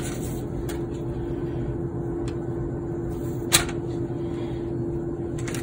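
Steady machine hum holding one constant low tone, with a few soft clicks and one sharper click about three and a half seconds in.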